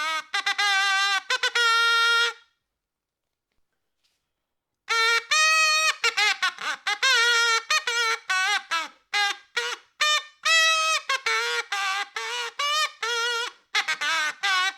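Toy trumpet blown in a run of short toots at a few different pitches, some notes wobbling. The toots stop for about two and a half seconds after the first couple of seconds, then go on in quicker, choppier blasts.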